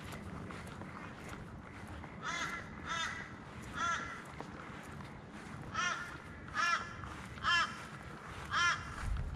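A crow cawing repeatedly: short, harsh calls, three in a row a couple of seconds in, then a second run of four.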